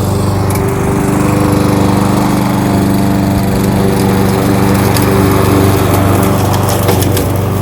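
Kohler XT-675 single-cylinder engine on a push lawnmower, running steadily at mowing speed.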